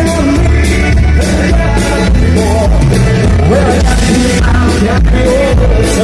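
Live band playing an up-tempo song with a lead vocal over bass, guitar and drum kit, cymbals keeping a regular beat.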